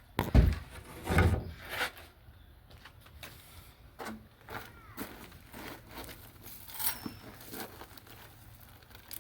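A heavy thump about half a second in, then a few more thumps and scattered lighter knocks and clicks, like work on a wooden porch.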